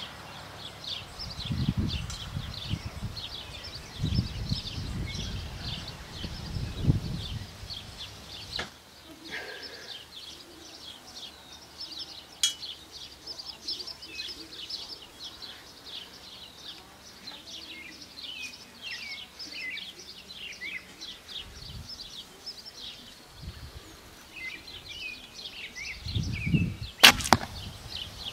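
An arrow from a 40-pound recurve bow striking a foam block target with one sharp, loud smack near the end. Birds sing steadily throughout, with low rumbling from wind on the microphone early on and just before the hit.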